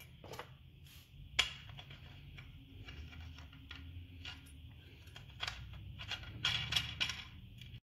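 Small metal parts clicking and clinking as a star washer and nut are handled and fitted onto the threaded shaft of a golf cart's accelerator contact board assembly. Scattered light clicks, the sharpest about a second and a half in and a quick run of them near the end, over a faint low hum.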